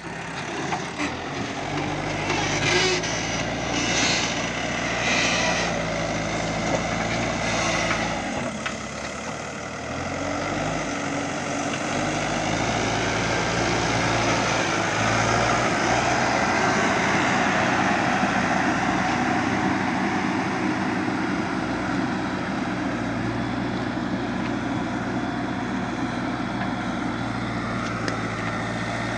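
Backhoe loader's diesel engine running under working load, its note rising and falling as the machine digs. There are patches of higher-pitched clattering noise in the first several seconds. The engine eases off briefly a little before halfway, then pulls harder and louder through the middle.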